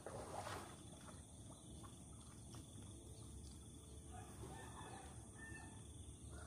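Quiet outdoor background with a faint, distant rooster crowing about four seconds in.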